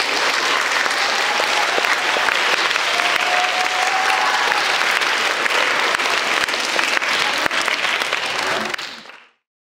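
Audience applauding steadily, with a few voices mixed in; the applause fades out about nine seconds in.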